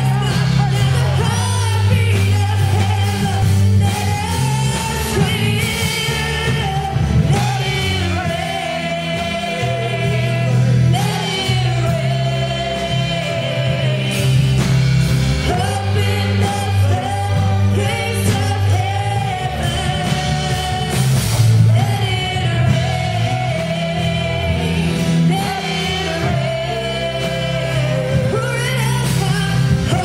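Live worship band playing: a woman singing the melody over electric bass, keyboard and a drum kit with cymbals.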